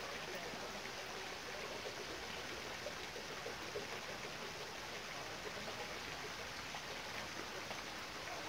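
Steady rushing water noise, even and unbroken.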